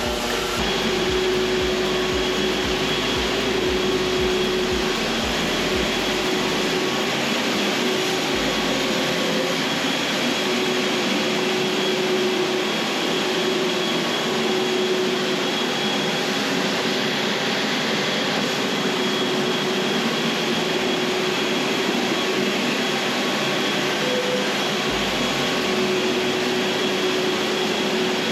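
An electric floor-care machine running steadily during wax stripping of a hardwood floor, a continuous noisy drone with a faint steady hum.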